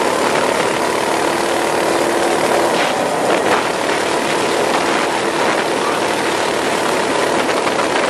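Minibike's small engine running steadily at riding speed, a constant drone half buried under heavy wind noise on the microphone.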